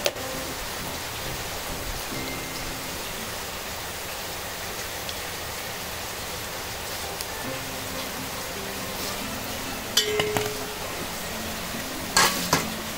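Steady hiss of vade (rice-flour breads) frying in hot oil, with a sharp clink of a metal utensil about ten seconds in and a short run of clinks near the end.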